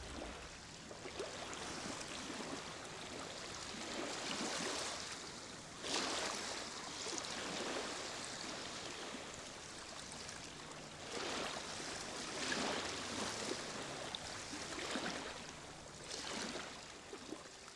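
Gentle water washing with a steady hiss, swelling and fading every few seconds like small waves on a shore.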